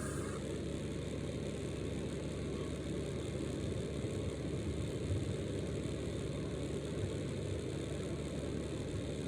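Small electric fan of a tabletop tornado machine running steadily, an even low whir with no changes.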